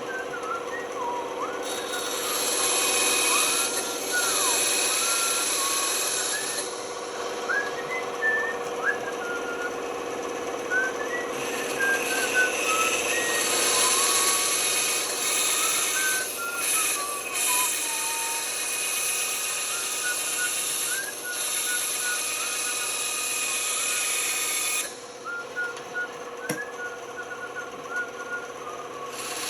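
A workshop power tool runs in long stretches, switching on and off several times, over a steady hum, while someone whistles a tune in short, sliding notes.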